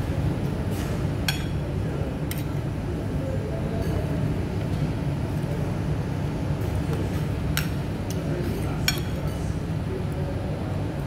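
A metal spoon clinks sharply against a ceramic plate several times while scooping food, over a steady low background rumble.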